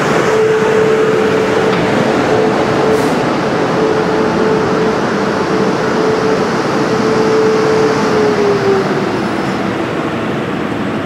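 South Western Railway electric multiple unit running slowly alongside the platform, its wheels and body giving a steady rumble. A steady electric whine sounds over it and drops in pitch and fades about eight seconds in as the train slows.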